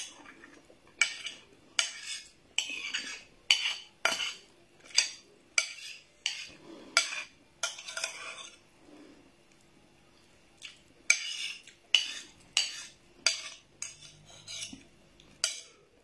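A metal spoon scraping and clinking against ceramic dishes in a quick run of sharp strokes, about one every three-quarters of a second, with a pause of about two seconds midway.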